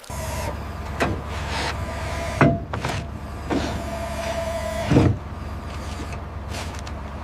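Small electric motors of a radio-controlled construction model whining steadily, with sharp knocks about one, two and a half and five seconds in.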